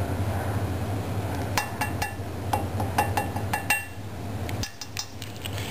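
Measuring spoons clicking and clinking in a quick run of light knocks as half a teaspoon of calcium hydroxide is measured out. A steady low hum underneath cuts off about four and a half seconds in.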